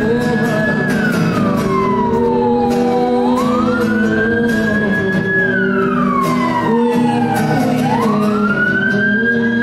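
Emergency vehicle siren wailing in a slow cycle: a rise, a held high note, then a long fall, repeating about every four and a half seconds, over music.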